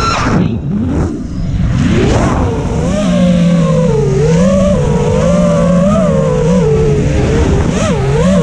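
Micro FPV quadcopter's brushless motors and propellers whining, the pitch following the throttle. It drops sharply at the start, climbs again about two seconds in, then wavers up and down through quick manoeuvres.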